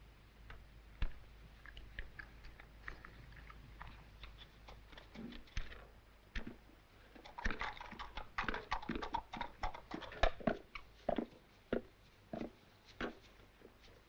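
Donkey's hooves and a man's footsteps on a dirt path strewn with dry leaves, a dense run of steps in the middle. Sparse single clicks before it.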